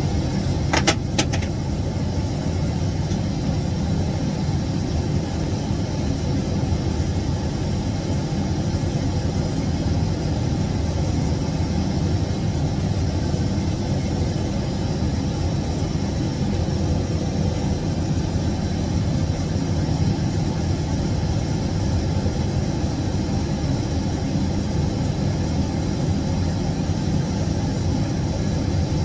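Steady roar of an airliner in flight heard inside its lavatory, strongest in the low range, with a few sharp clicks about a second in.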